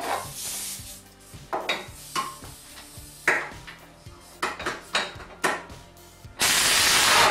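Metal tools clinking and knocking as bolts under a Smart fortwo's engine cradle are worked loose. About six and a half seconds in, a pneumatic tool on an air hose runs in one loud, steady rushing burst lasting about a second.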